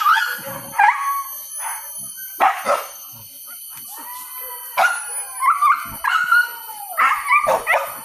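Hunting dogs barking, yelping and howling in repeated bursts, several calls overlapping and some drawn out with a pitch that rises and falls: the pack giving tongue during a wild boar hunt.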